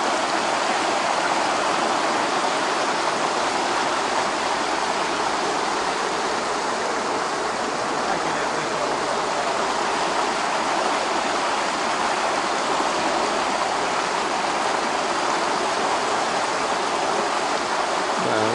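Stream water flowing with a steady, even rush.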